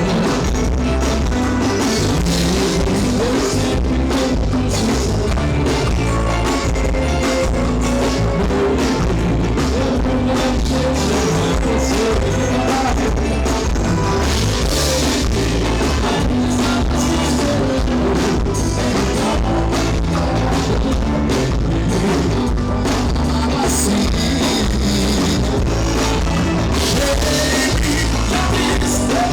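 Live band music from a stage show, with a steady beat on drum kit and bass and guitar over it.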